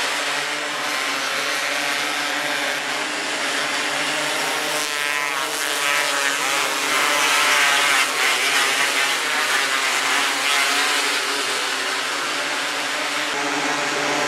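Several 270cc micro sprint car engines running together on the track, with engine pitch rising and falling about five to seven seconds in as cars rev and pass.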